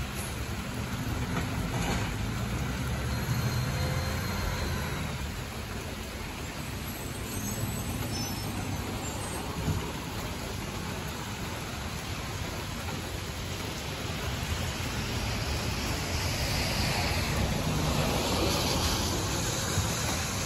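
Mack LR garbage truck with a Labrie automated side-loading arm, its engine running as it pulls up to the carts and works the arm. The engine gets louder for a few seconds near the start and again toward the end, over a steady hiss of wet road and rain.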